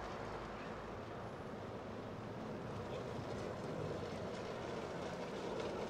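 Steady outdoor urban background noise: an even, low rumble like distant city traffic, with no single event standing out.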